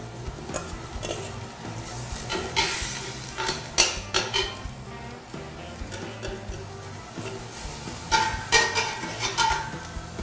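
Chopped onions sizzling in browned butter in a stainless steel stockpot, stirred with a long metal spoon that scrapes and clinks against the pot at intervals. The onions are sautéing over the brown bits left from searing the quail, the first stage of a gumbo.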